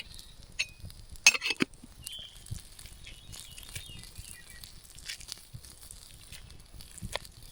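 Camp cookware and a utensil clattering as food is served, a quick cluster of sharp knocks about a second and a half in, with single clicks before and near the end. Faint high chirping runs underneath from about two seconds in.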